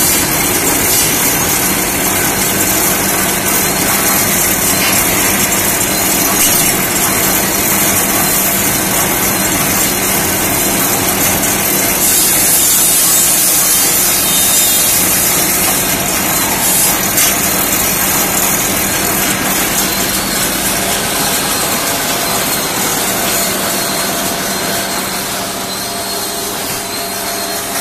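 Belt-driven bamboo satay-skewer machine running steadily: a constant hum from its drive under a loud high hiss, easing slightly near the end.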